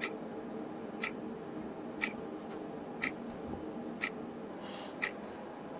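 A clock ticking steadily, one tick each second, over a low steady room hum.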